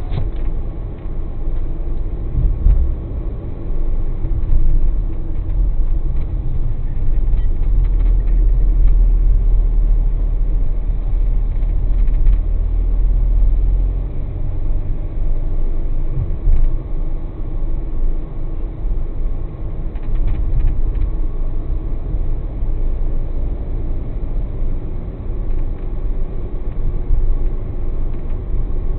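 Kia Carens on the move, heard from inside the cabin: a steady low rumble of engine and tyres on a wet road, a little louder through the middle.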